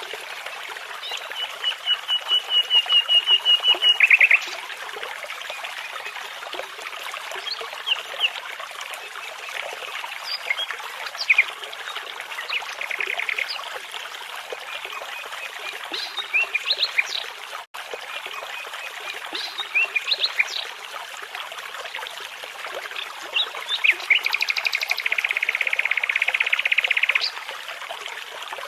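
Nightingale singing over a steady babbling brook. A rapid run of repeated notes swells in loudness over the first few seconds, scattered short whistles and chirps follow, and a long fast trill comes near the end.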